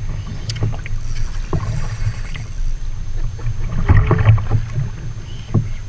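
Water slapping against a fishing kayak's hull and a low wind rumble on the microphone, with scattered short knocks and clicks, loudest about four seconds in, as a spinning reel is cranked against a hooked fish.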